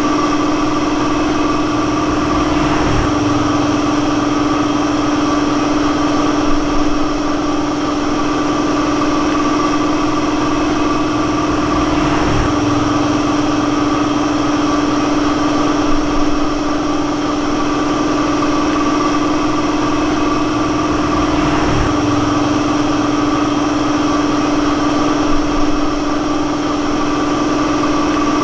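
Steady mechanical drone, an unchanging hum at one pitch, with a faint swell that recurs about every nine and a half seconds.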